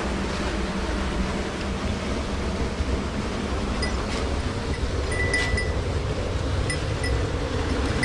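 Steady rush of a mountain stream, with a few brief high chirps a little past the middle.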